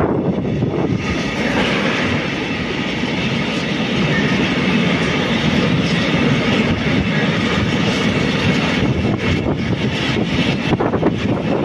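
Freight train of tank wagons rolling past close by, its steel wheels running on the rails in a steady rumble. A quick run of clacks from the wheels over rail joints comes near the end.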